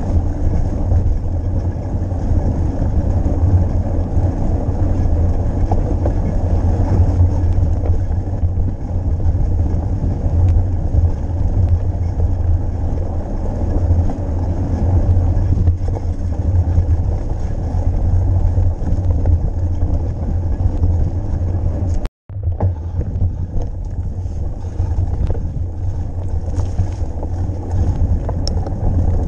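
Steady wind buffeting the microphone and the low rumble of a mountain bike riding over rough ground. The sound cuts out for a split second about 22 seconds in.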